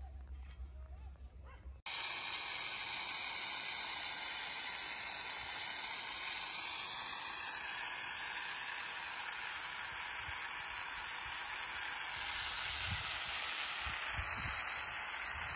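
Water hissing steadily from a brass hose spray nozzle, watering durian trees. It starts abruptly about two seconds in, after a faint low hum.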